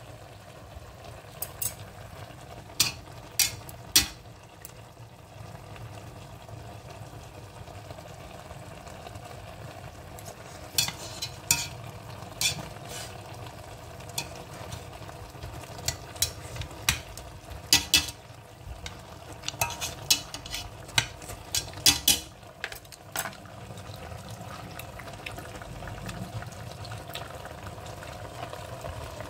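Ginger chicken and vegetables cooking in a stainless steel pot, sizzling steadily, with scattered sharp pops and clicks, several coming in quick runs.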